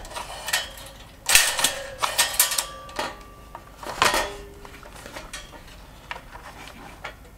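The opened Tefal toaster's plastic casing and metal frame being handled and shifted, giving irregular clacks, rattles and scrapes of plastic and metal; the sharpest knocks come about a second and a half in and around four seconds.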